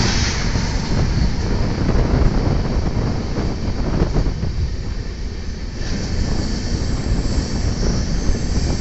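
Passenger train running at speed, heard from an open coach doorway: a steady rumble of wheels on the rails with rushing air. The louder noise of a train passing on the next track fades as its last coach clears at the start, and a high hiss builds again in the last few seconds.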